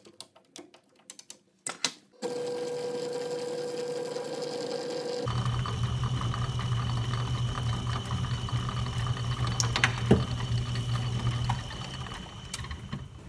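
1936 Atlas 12-inch metal lathe running in back gears while a parting tool cuts off the workpiece. A steady machine whirr starts about two seconds in, becomes a louder, lower hum about five seconds in with a couple of sharp clicks, and eases off near the end.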